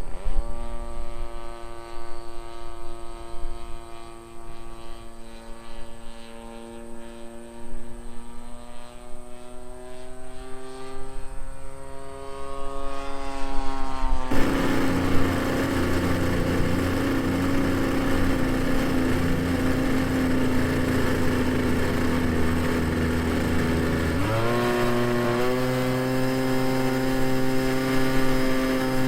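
Small two-stroke gas engine of an RC Piper Cub model airplane, a 20cc motor with propeller, running with a steady drone. About halfway through it becomes abruptly louder and rougher. Near the end the pitch rises sharply, then holds.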